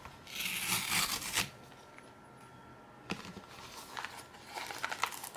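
Tear strip of a cardboard mailer being ripped open, a ripping sound lasting about a second near the start. Scattered crackling and rustling of the cardboard follow in the second half as the flap is bent open.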